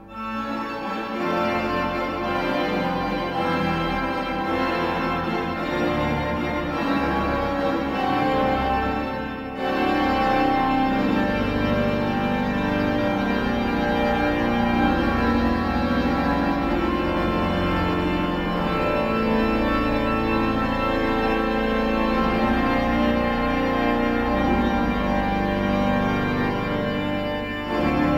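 Pipe organ of St. Stephen's Cathedral, Passau, playing full, sustained chords; after a brief lull about nine seconds in it comes back louder.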